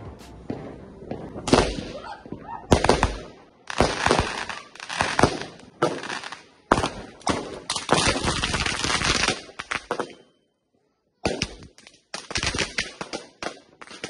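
Firework barrage going off: a rapid string of sharp bangs and crackling. It breaks off briefly about ten seconds in, then more crackling bangs follow.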